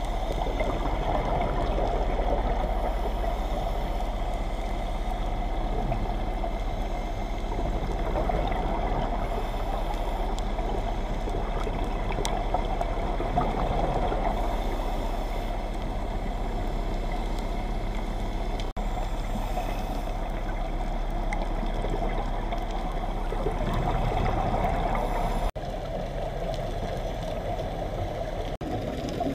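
Muffled underwater ambience picked up by a dive camera in its housing: a steady drone with a constant low hum. It drops away abruptly about two-thirds of the way in and twice more near the end, where the footage is cut.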